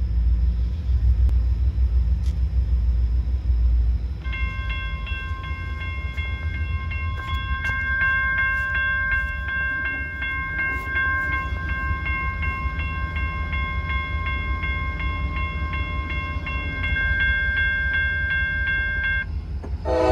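Freight train cars rumbling past on the rails while a grade-crossing warning bell rings at a steady, even rate from about four seconds in until near the end. Right at the end, the horn of an approaching locomotive starts to sound.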